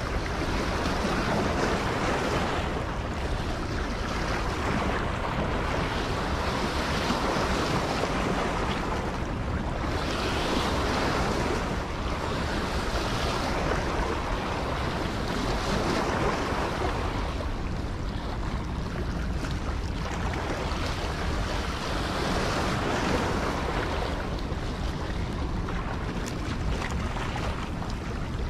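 Steady rush of water flowing out below a dam, swelling and easing every few seconds, with wind buffeting the microphone.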